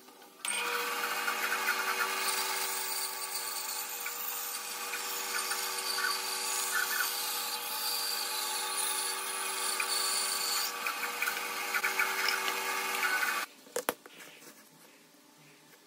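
Bandsaw running and cutting through a pine block: a steady motor hum under the rasp of the blade in the wood. It starts suddenly about half a second in and cuts off suddenly near the end.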